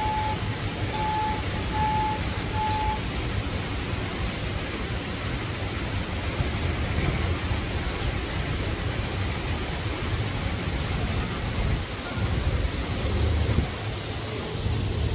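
A construction vehicle's reversing alarm beeps four times, about once every 0.8 s, in the first three seconds. Under it runs a steady low rumble and hiss of machinery and traffic.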